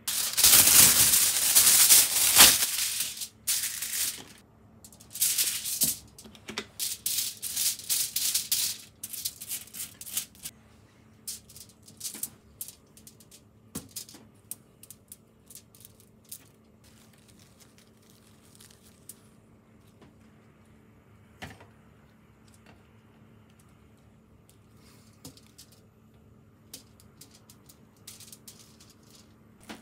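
Aluminium foil crinkling and rustling as it is handled, loud for the first two or three seconds. Shorter rustles follow until about ten seconds in, then only scattered light clicks and taps as ingredients are laid on the foil.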